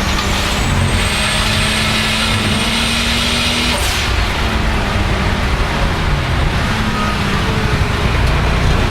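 Turbocharged BMW 535i E34's 3.8-litre M30 inline-six under boost, its turbo whistle rising to a high, steady pitch and holding. About four seconds in the whistle cuts off with a short rush of the blow-off valve venting as the throttle lifts, and the engine runs on underneath.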